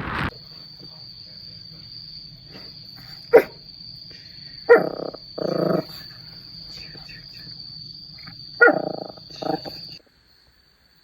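Animal calling in five short, loud cries, two close pairs and a single one, over a faint steady high whine; the sound cuts off near the end.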